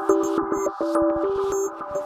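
Electronic background music: held synthesizer notes over a quick, ticking beat.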